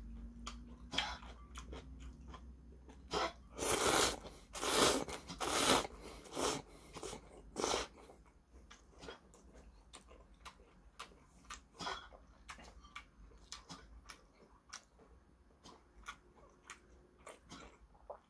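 A person eating spaghetti noodles from a bowl of soup: a few loud, noisy slurps about four to six seconds in and another near eight seconds, then chewing with soft, scattered mouth clicks.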